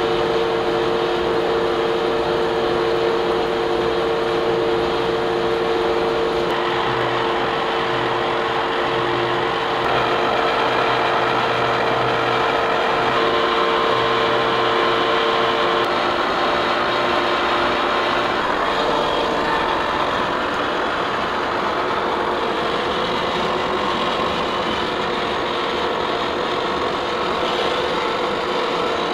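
Horizontal boring mill's large indexable-insert face mill taking a facing pass across an angle plate, with its inserts trued so they all cut evenly. A steady machining noise whose tone changes partway through.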